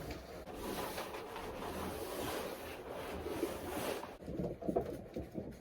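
Wind buffeting the microphone as a steady rushing noise. It drops off sharply about four seconds in, leaving faint scattered rustling and knocks.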